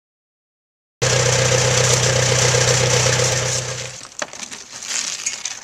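An engine running steadily, dropping away about three seconds after it starts, followed by a few sharp knocks and scrapes as old cedar roof shingles are pried off.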